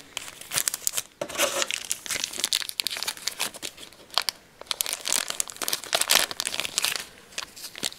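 Clear plastic packaging crinkling in the hands: a thin wrapper peeled off a card and a small resealable bag of cardboard game pieces being handled and opened, in a run of irregular crackles with a short lull about a second in.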